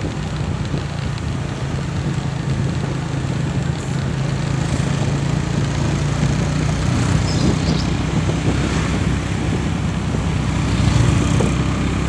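Motorcycle engine running steadily while riding, heard from the rider's seat, with wind and road noise.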